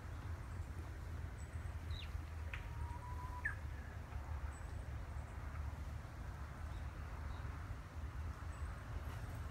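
A few brief bird calls about two to three and a half seconds in: a quick falling note, a short steady note and a chirp. They sound over a steady low rumble of outdoor background.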